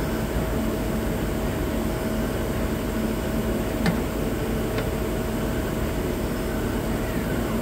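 Okuma Genos CNC lathe running steadily with a constant hum while a threading tool cuts a thread on a spinning brass bar. Two short sharp clicks come about four and five seconds in.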